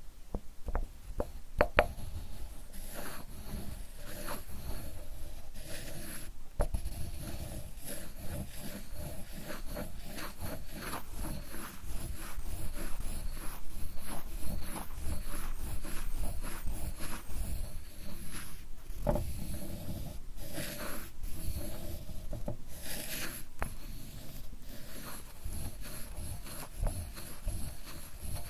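Sumi ink stick rubbed back and forth on an inkstone, grinding ink: a steady gritty rubbing, with a few light clicks about a second in.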